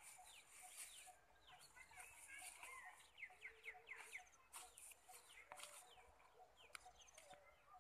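Faint birds chirping, many quick falling calls in a row, with a few soft clicks.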